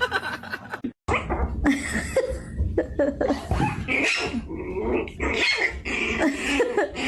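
A dog vocalizing in a run of short, varied, pitched sounds, broken by a brief gap about a second in.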